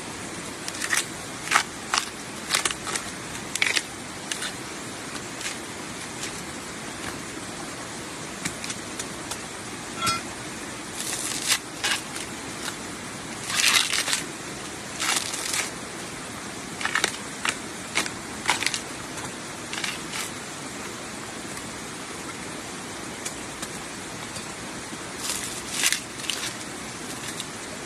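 Irregular short crunches and crackles of dry leaf litter and soil being disturbed, coming in scattered clusters with quieter stretches between, over a steady hiss.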